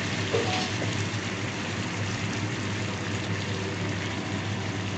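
Marinated chicken pieces and fried onions sizzling in oil in a nonstick pan, a steady crackling fry as the chicken is browned down over a low-to-medium gas flame. A low steady hum runs underneath, and there is a light knock about half a second in.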